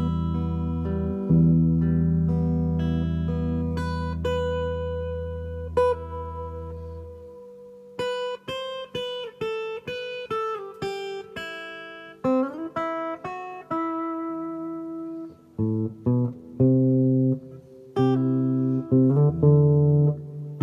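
Guitar played through a Fender Marine Layer Reverb pedal in its Hall mode, Variation 2. A low chord rings and slowly fades for about seven seconds, then comes a run of short single notes, then chords and notes again near the end.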